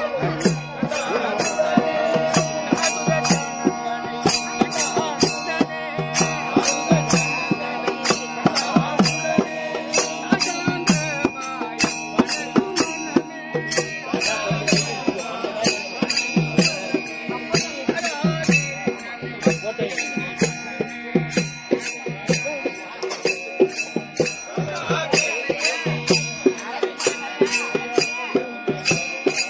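Devotional group music played live on a harmonium, with voices singing over its held notes and a steady jingling percussion beat about twice a second.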